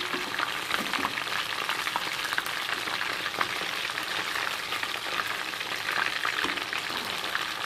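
Chicken pieces frying in oil in a pan, a steady sizzle full of small crackles.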